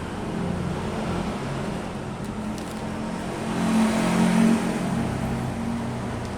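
A motor vehicle's engine passing close by, its low hum growing louder to a peak about four seconds in and then easing off.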